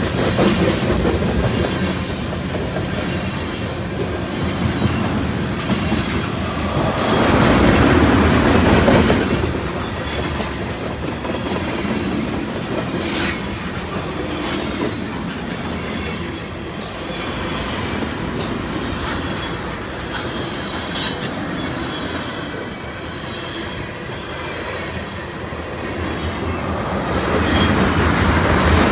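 Freight train of tank cars rolling past close by: steel wheels clacking over the rail joints over a steady rumble, with many sharp clicks. It swells louder about seven seconds in and again near the end.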